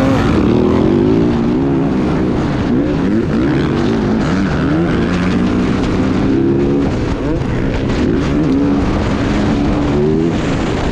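Motocross bike engine at race pace, heard from the rider's own bike, its pitch climbing and dropping over and over with throttle and gear changes. Wind rushes over the microphone throughout.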